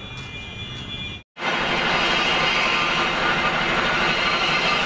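A workshop machine with a large spinning wheel starts loud just over a second in, after an abrupt cut. It runs steadily, a dense high-pitched whirring noise with faint ringing tones in it. Before it there is about a second of quieter workshop sound.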